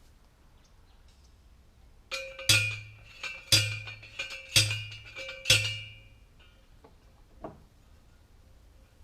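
Four heavy metal-on-metal blows about a second apart, each with a deep thud and a brief ringing tone, with lighter clinks between them and one more knock near the end. This is typical of a steel fence T-post being pounded into the ground.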